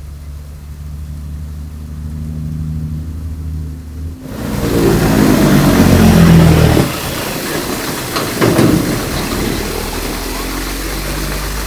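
A motor vehicle's engine running with a steady low hum that grows louder. About four seconds in, a loud rushing noise starts suddenly, and the engine note falls in pitch over the next two seconds.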